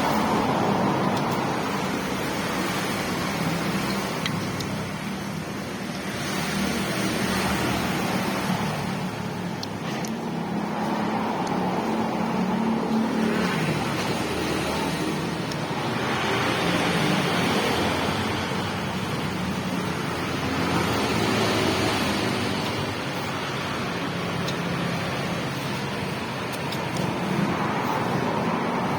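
Steady road traffic noise, the rush of passing vehicles swelling and fading every few seconds.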